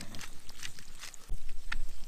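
Hand-turned pepper mill grinding pepper over frying eggs: a scatter of small crunchy clicks. A low rumble comes in a little past halfway.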